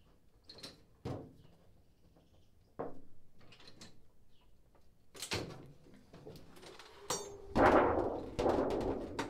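Aluminium trim coil being bent on a sheet-metal brake: a few sharp metal clunks from the brake's clamp and bending handle, then a brief ring and a loud rattling flex of the loose sheet as it is lifted out near the end.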